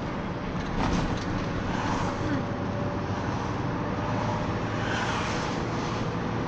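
Mercedes-Benz Sprinter minibus driving through town, heard from inside the passenger cabin: steady engine and road noise, with a brief clatter about a second in.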